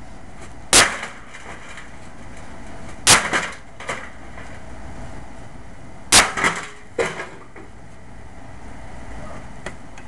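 The blunt back of an axe striking a sheet-metal electric space heater three times, each blow a sharp metallic crash. The second and third blows are followed by rattling and clattering knocks, and there is a faint knock near the end.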